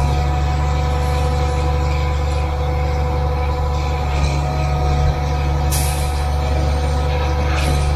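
38-metre concrete boom pump truck running steadily while pumping concrete: a loud, continuous low engine drone with several steady whining tones over it. A short hiss comes about six seconds in.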